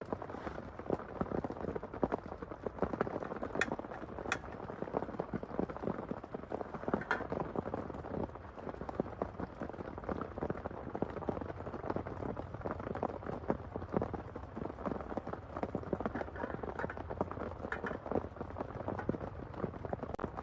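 Heavy rain falling close by, a dense, steady patter of drops striking a surface.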